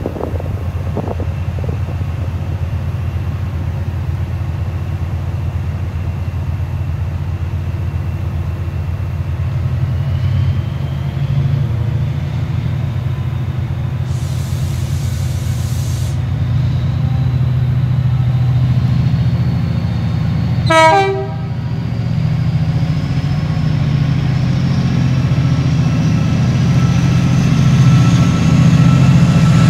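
Chiltern Class 68 diesel locomotive's V16 engine running steadily as it pulls a train out and approaches, growing louder, with a thin whine rising in pitch. A brief hiss of air comes about halfway, and a short horn toot about two-thirds of the way through.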